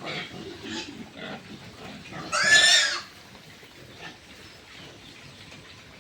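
Pigs grunting, then one pig squeals loudly for under a second about two seconds in.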